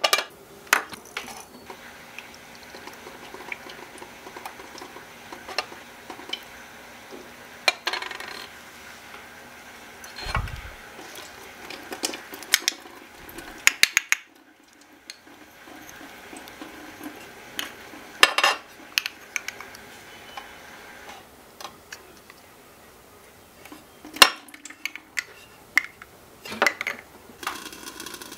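Miniature kitchenware clinking and knocking lightly and irregularly: a small ceramic bowl, a plastic strainer and a tiny metal sink tapping together as sliced mushrooms are washed and drained.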